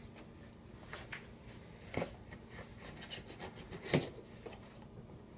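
Cardboard packaging being handled and opened: light scraping and rustling, with two sharper knocks about two and four seconds in.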